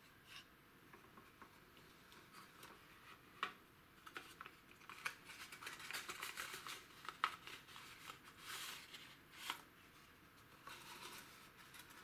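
Thin cardboard valve carton being opened and unfolded by hand: faint rustling and scraping of the card with a few sharp snaps of the flaps, busiest in the middle and tailing off near the end.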